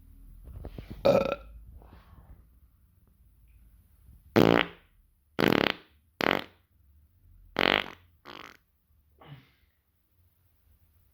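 A person farting and burping: a series of about seven short, loud blasts, a pitched one about a second in, then a quick run of five between about four and eight and a half seconds in, and a fainter one near the end.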